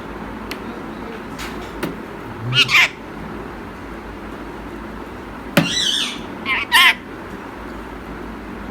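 Indian ringneck parakeet giving short, high-pitched squawking calls: one about two and a half seconds in, then two more close together near the six- and seven-second marks.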